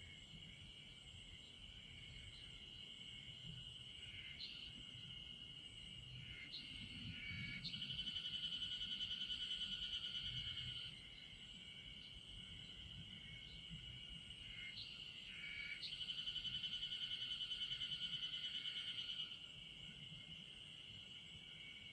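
Night insects calling: a steady high-pitched trilling chorus, with two louder, rapidly pulsed trills of about three seconds each, the first about eight seconds in and the second about sixteen seconds in.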